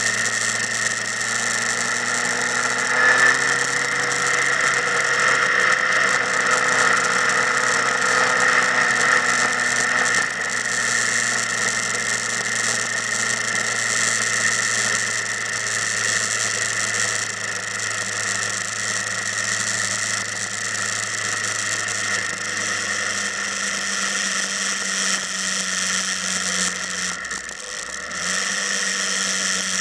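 Motorcycle engine running steadily, its pitch shifting slightly a few seconds in and dropping briefly near the end.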